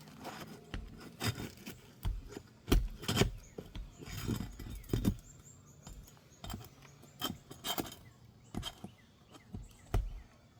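Irregular knocks, taps and scraping of a hand tool working under architectural asphalt shingles to break the seal and pull roofing nails.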